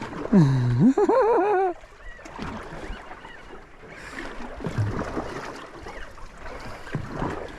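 Two short untranscribed vocal sounds from a man and then a higher voice, then a steady wash of water and wind noise around a small boat.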